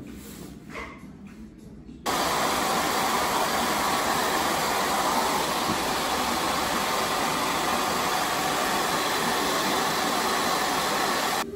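Handheld hair dryer blowing steadily while drying long hair, a loud even rush of air and motor that starts abruptly about two seconds in.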